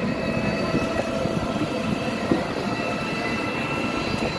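Continuous ride noise from an open three-wheeler moving through traffic: a rattling, uneven rumble with faint steady high-pitched whines over it.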